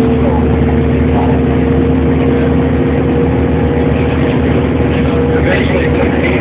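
Steady drone of a transit bus's engine and drivetrain heard from inside the passenger cabin, with a constant hum at two fixed pitches.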